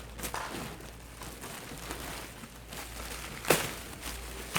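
Plastic and paper wrapping rustling and crinkling as a new leather handbag is unwrapped. There is one sharp, louder crackle about three and a half seconds in.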